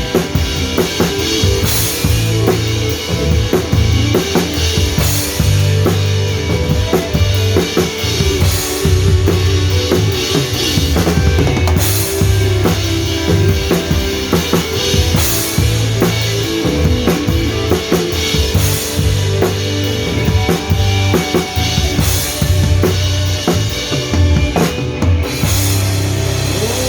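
Live gospel band playing an instrumental passage with the drum kit up front. Kick, snare and rimshots drive the beat over a steady bass line and held chords, with a cymbal crash about every three to four seconds.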